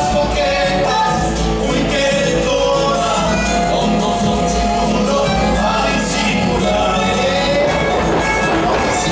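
Argentine folk music with a singing voice over instruments and percussion, playing on without a break.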